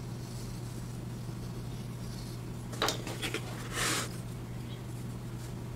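Steady low hum, with a few light clicks about three seconds in and then a brief scrape as a thin laser-cut wooden piece is slid across and lifted off the wooden tabletop.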